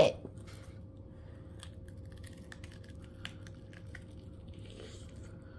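Close-up crunching and chewing of a pickle coated in Hot Cheetos: a string of small crisp crunches through the first four seconds or so, then quieter.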